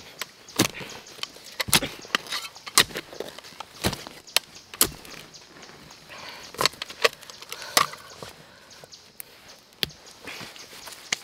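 A small metal shovel digging into dry, stony soil: irregular sharp strikes and scrapes of the blade against earth and grit.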